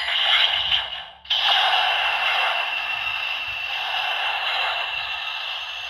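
Electronic sound effect from the Ultraman Hikari Knight Brace toy's small speaker after a short press of its button: a hissing energy whoosh that breaks off about a second in, then a second, longer whoosh that slowly fades.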